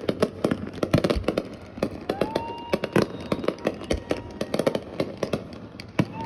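Fireworks going off in quick succession, many sharp bangs and crackles. A long steady whistle-like tone sounds over them for about three seconds midway.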